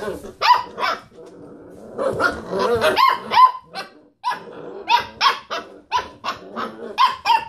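Basset hound puppies barking and yapping at each other in short, high calls with growls mixed in while they play. The calls come thick and fast from about two seconds in, then settle into about two barks a second.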